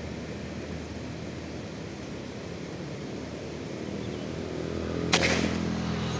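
A single air-rifle shot about five seconds in: one sharp crack over a steady low hum.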